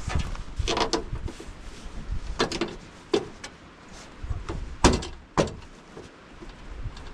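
Scattered knocks and clicks from handwork on a car's tailgate, feeding wiring and fitting parts back in place, with two sharper knocks a little before the end.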